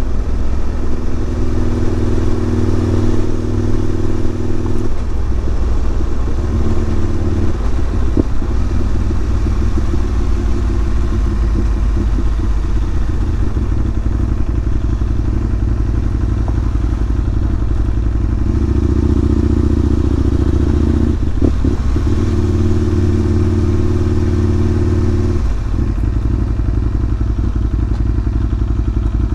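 Aprilia Caponord ETV1000's V-twin engine running at low road speed. Its note steps up and down several times as the throttle and gears change, with a couple of brief knocks along the way.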